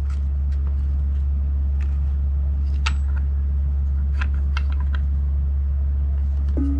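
A steady low hum, with scattered faint clicks and rustles of a parcel being handled and opened.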